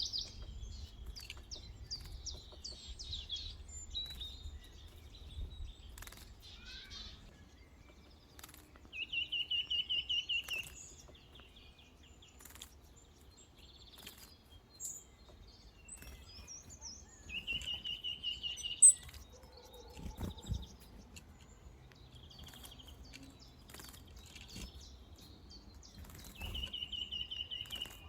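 Wild birds calling: one bird repeats a short, fast trill three times, about eight seconds apart, among scattered chirps. There is a sharp click a little before the middle of the second half.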